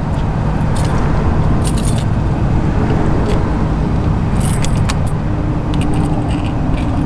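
A bunch of keys jangling and clicking in the entry-door lock of an Airstream travel trailer as it is locked, in several short bursts, over a steady low rumble.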